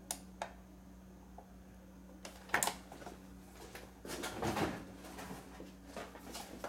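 Handling noises from carded action figures being swapped: a few light clicks, a sharper tap about two and a half seconds in, and rustling about four seconds in, over a faint steady hum.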